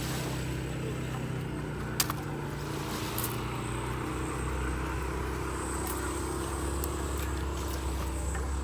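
An engine running steadily at idle, with one sharp click about two seconds in.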